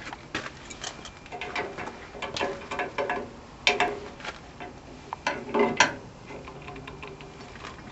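Irregular light clicks and knocks of small metal hardware being handled on a welder's rectifier diode plate, with a few louder knocks about halfway through and again near three-quarters of the way in.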